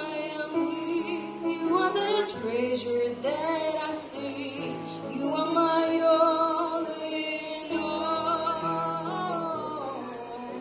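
A woman sings a Christian worship song solo into a microphone through a PA, in a slow, smoothly gliding melody. Under her voice, instrumental accompaniment holds steady low chords that change every second or two.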